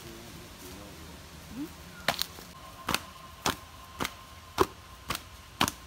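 Sharp, hard knocks, about two a second, starting about two seconds in. A faint steady high tone runs under them from about halfway.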